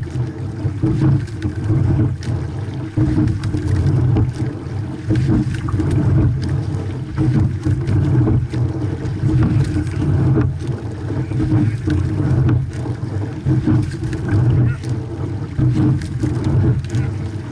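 Water rushing along the hull of a sculling boat, with wind on the microphone, swelling and easing about every two seconds in time with the rowing strokes. Light knocks are heard here and there through it.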